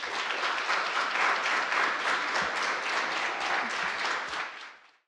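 Audience applauding at the close of a talk, a dense patter of many hands that fades out near the end.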